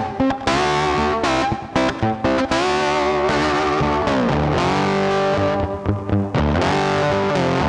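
Background rock music led by a distorted electric guitar, with a long downward pitch slide about four seconds in that climbs back up near the end.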